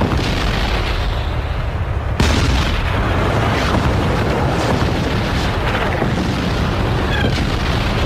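Tank battle: cannon fire and explosions over a continuous deep rumble, with a sudden loud blast about two seconds in.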